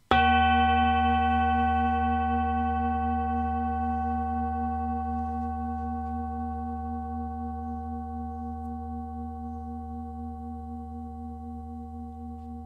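A singing bowl struck once, right at the start, ringing on with several steady overtones over a deep low hum and fading slowly.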